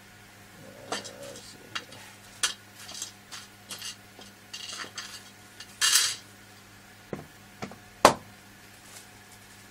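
Small metal screws for mounting a hard drive clinking and rattling as they are picked out and handled: a string of light clicks and taps, with a short scraping rustle about six seconds in and one sharper knock about eight seconds in.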